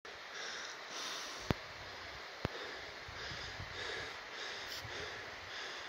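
A person breathing audibly close to a phone microphone while walking uphill on snow, in a breath about every second. Two sharp clicks come about one and a half seconds in and again a second later.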